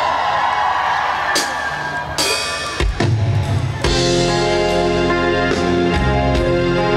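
Instrumental intro of a trot song starting: a few drum hits and a drum fill, then the full accompaniment comes in about four seconds in, with sustained keyboard chords over a steady drum beat.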